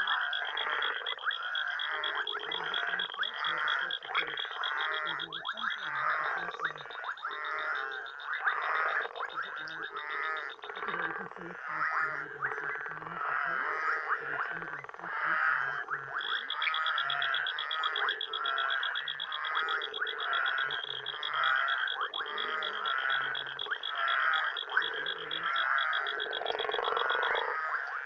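Night chorus of frogs and toads: rough croaks repeating about once a second, over a continuous high, fast-pulsing trill that breaks off about eleven seconds in and starts again some five seconds later.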